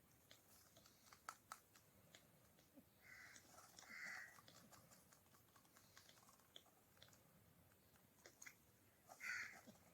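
Faint raspy squawks from ringneck parrot chicks: short calls about three seconds in, another a second later, and again near the end, with scattered soft clicks between.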